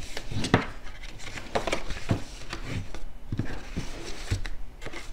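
Cardstock being folded back and forth along its score lines by hand, a string of irregular short crackles and taps of stiff paper creasing and knocking on the table.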